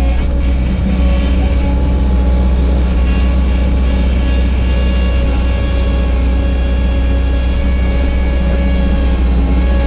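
Engine of a 1988 Bobcat 743 skid steer running steadily: a loud, even low drone with steady higher tones over it.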